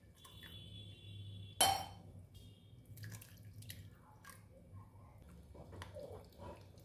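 Water dripping and trickling through the cloth as cold water is worked into crumbly chhena with a spoon, with small scraping clicks from the spoon. One sharp knock about a second and a half in.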